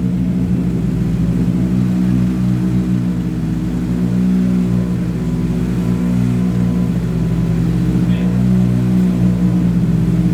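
A vehicle engine running steadily at a constant speed, a low even hum that holds its pitch.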